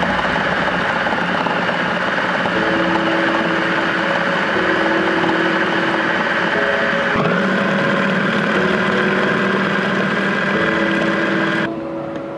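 Hamilton Beach food processor motor running steadily, its blade churning frozen banana slices and coconut milk into a smooth purée. The motor switches off near the end.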